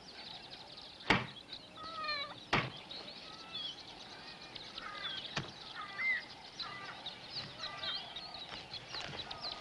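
A rock striking the top of a wooden stake as it is driven into the ground: two sharp knocks about a second and a half apart, and a fainter one a few seconds later. High chirping calls go on throughout.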